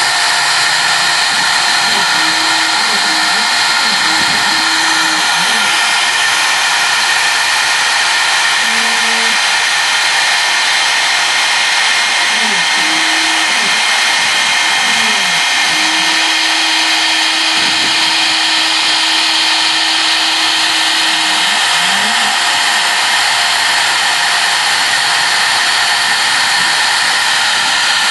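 CNC router spindle running steadily at high speed while its engraving bit mills traces into a copper-clad PCB. Lower motor tones rise, fall and hold as the machine's axes move the bit along the traces.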